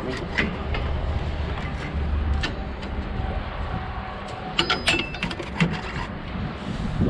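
Pieces of scrap metal clinking and knocking, in a cluster about five seconds in, some with a short metallic ring, over a steady low engine rumble.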